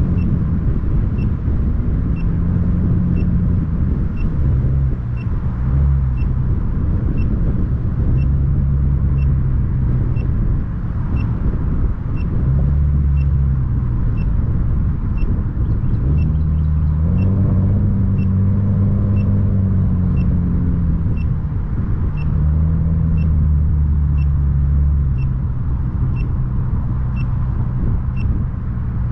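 Car driving along with a steady engine and road rumble, the engine note stepping up and down. Over it, a short high-pitched beep repeats about three times every two seconds.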